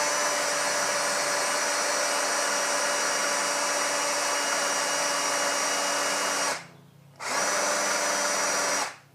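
Power drill running at high speed with a steady whine, spinning a motorcycle speedometer's drive input to test the gauge. It stops about six and a half seconds in, runs again briefly, and stops near the end.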